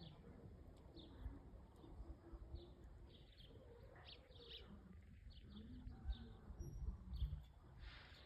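Faint, short chirping song notes of a white-throated seedeater (golinha), scattered irregularly over a low background rumble. A few low bumps stand out between about six and seven seconds in.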